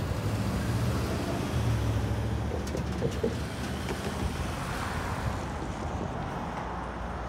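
Cars driving across a railroad grade crossing one after another: a low engine hum and tyre noise.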